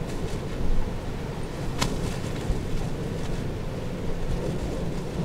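Wind buffeting the camera's microphone: a steady low, rough noise, with a single sharp click about two seconds in.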